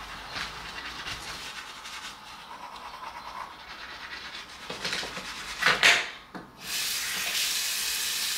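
Toothbrush scrubbing teeth in quick, soft strokes, with a few louder strokes around five to six seconds in. After a short pause a bathroom sink tap is turned on and runs with a steady hiss.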